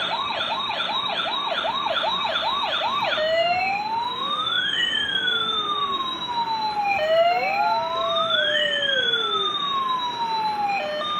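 Toy police car's built-in electronic siren: a fast yelp of about three rising whoops a second for the first three seconds, then a slow wail with two tones sweeping up and down past each other, switching near the end to a beeping pattern of held notes.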